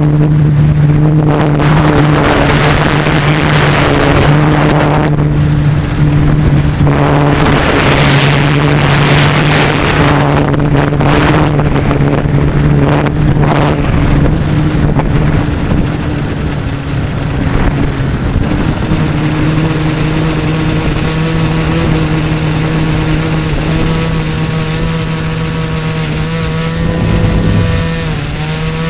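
Brushless motors (LD Power MT4010, 475 KV) spinning 13 x 5.5 inch carbon propellers on a GF 680 multirotor drone in flight, heard from its onboard camera as a steady hum. Gusts of wind hit the microphone through the first half, and the pitch dips briefly near the end.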